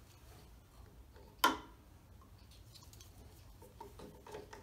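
Clear plastic storage tubes clicking: one sharp click about a second and a half in, then a few faint taps near the end as a tube is set into its wall rack.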